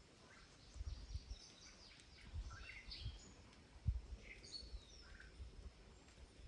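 Quiet farmyard ambience with scattered faint bird chirps and a few low thumps, one a little louder about four seconds in.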